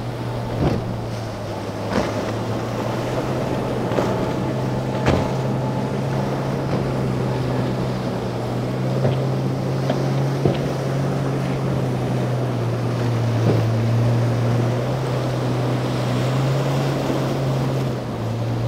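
Twin outboard engines of a center-console boat running hard through rough inlet swells: a steady low drone, broken by several sharp thumps as the hull slaps down on the waves.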